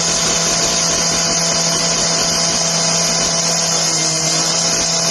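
A power tool or machine motor running steadily, with a strong high hiss over a constant low hum.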